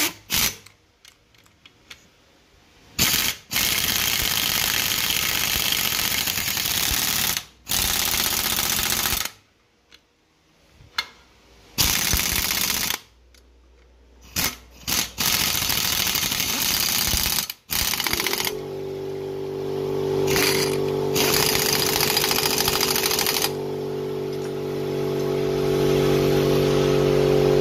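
Impact wrench hammering the rear sprocket's nuts tight, in several bursts a few seconds long with short pauses between. About two-thirds of the way in a steady motor hum starts and runs on under the last bursts.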